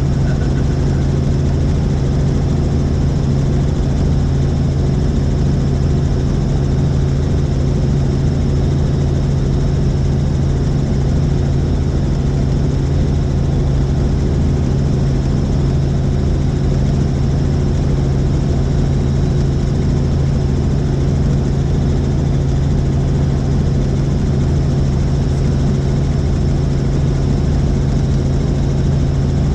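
Helicopter in flight: a steady, loud rotor and engine drone with a constant low hum that does not change.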